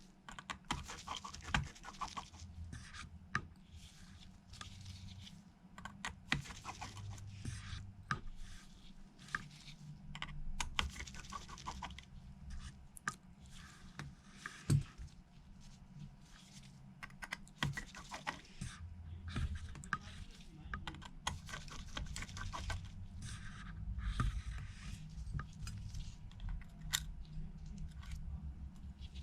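Many small clicks, taps and short scrapes of precision tools and fingers working on an iPhone 11 as it is opened up again.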